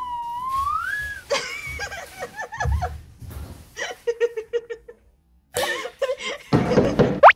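Giggling and snickering laughter, coming in short bursts, after a wavering whistle-like tone in the first second. Near the end a quick rising whistle sweep, the loudest sound.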